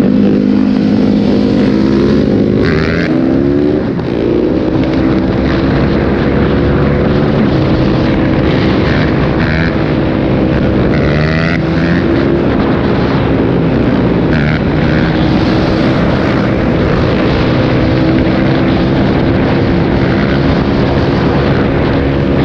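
Dirt bike engines running and revving, their pitch rising and falling several times as the riders work the throttle and gears, over a steady rush of wind.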